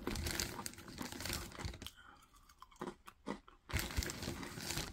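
A person chewing a mouthful of crunchy Charles Chips snack chips, with spells of crunching broken by short pauses around two and three seconds in.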